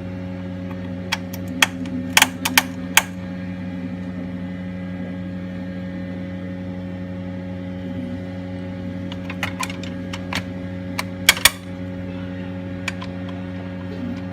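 Small metal hardware (washers and screws) clinking as it is handled and fitted, in two clusters of sharp clicks, one about two seconds in and another around ten to eleven seconds. A steady low mechanical hum runs underneath.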